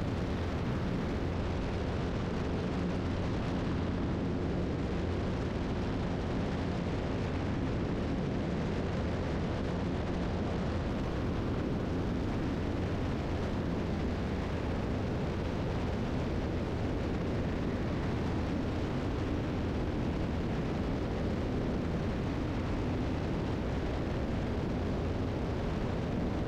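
Steady drone of a 1981 Piper Seneca III's twin piston engines and propellers in the climb, heard inside the cabin. It is an even, unbroken hum with a low pitched tone running through it.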